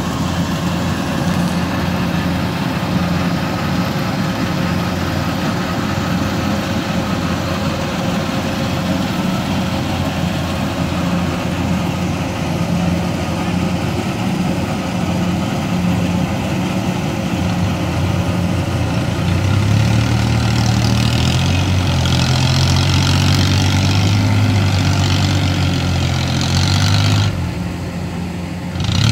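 Kubota combine harvester's diesel engine running steadily, then revving up about two thirds of the way through, its pitch rising and wavering as the tracked machine moves off through boggy rice-field mud.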